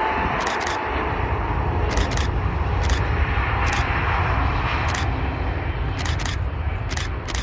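Canon EOS 700D DSLR shutter firing about a dozen times, in single shots and quick pairs, over the steady roar and low rumble of an airliner's jet engines on the runway.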